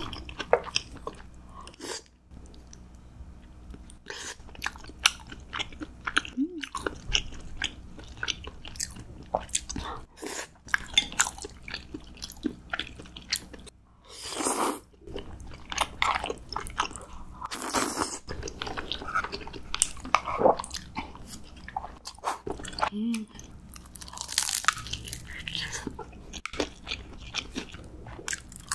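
A person eating close to the microphone: repeated crunchy bites and chewing, many sharp crunches throughout, with a few longer noisy stretches about halfway through and again near two-thirds of the way.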